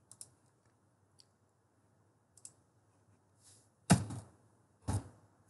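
A computer mouse gives a few faint clicks, then two louder keyboard key strikes come about four and five seconds in, while a new folder is made and named.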